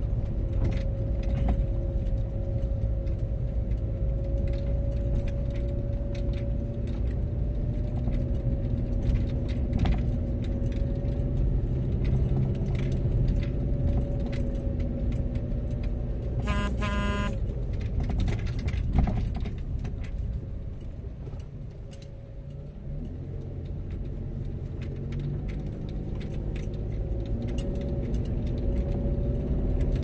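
Car running slowly along a rough narrow lane, heard from inside the cabin: steady engine and tyre noise with small rattles and knocks. There is a short beep a little past halfway, and the engine eases off for a few seconds soon after.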